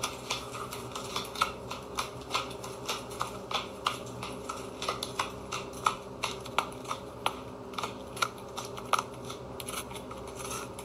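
A cat chewing and biting at the edge of a flat tray or box, making irregular crisp crunching clicks about two or three times a second over a steady low hum.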